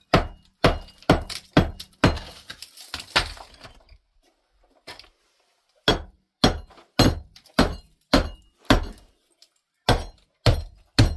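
Hammer striking concrete blocks, chipping at the edge of a wall opening: a steady run of sharp blows about two a second, with a pause of about two seconds in the middle before the blows resume.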